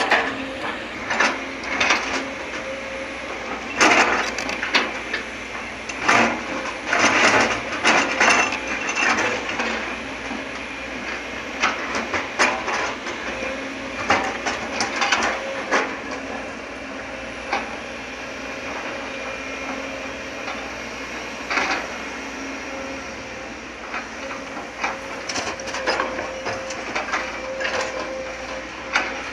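Sumitomo hydraulic excavator running steadily under working load, with repeated bursts of knocking and clatter as its bucket digs and drops soil and rocks into the steel bed of a dump truck.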